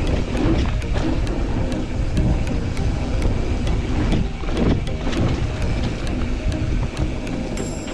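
Mountain bike rolling over a rough dirt trail: continuous rattle and rumble, with wind buffeting the microphone.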